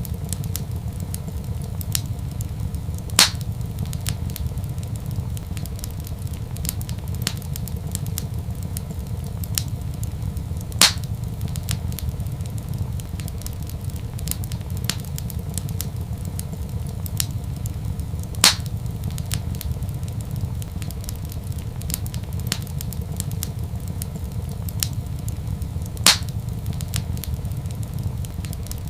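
Wood fire burning in a fireplace: a steady low rumble under frequent small crackles, with four louder pops at even intervals of about seven and a half seconds.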